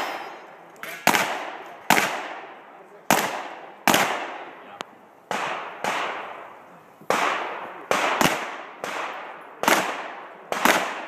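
Glock pistol shots fired in an uneven string, about thirteen in all, roughly every half second to a second, each followed by a long echo that trails off.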